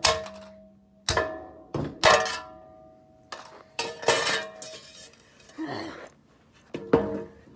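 Repeated hard blows smashing a computer mouse, roughly one a second and some in quick pairs, several leaving a short metallic ring.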